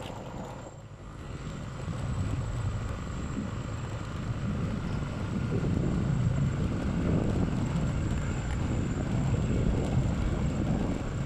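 Engine and road noise of a moving vehicle heard from on board: a steady low rumble that dips briefly about a second in, then grows louder and holds.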